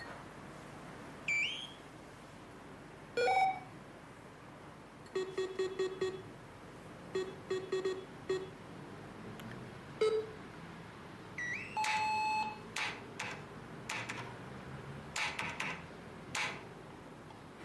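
Electronic beeps and chirps: short rising chirps, two quick runs of low pulsing beeps, and a single held tone lasting about a second, followed by short blips.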